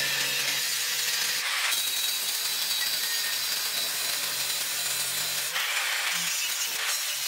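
Angle grinder with a cut-off disc cutting into a steel knife blank: a steady hiss of the disc biting the steel over the hum of the motor. The sound changes abruptly a little under two seconds in, and the motor hum drops away about five and a half seconds in.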